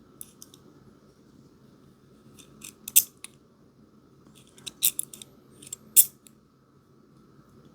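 Knipex Cobra XS water pump pliers being handled and worked, giving a few sharp clicks in small scattered groups, the loudest about three and six seconds in.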